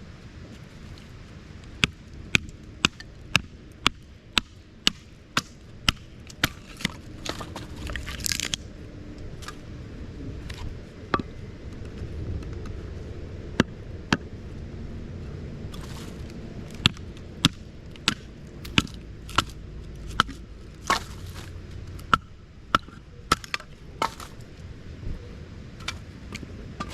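Firewood being chopped: repeated sharp wooden strikes, about two a second at first, then in irregular runs with short pauses.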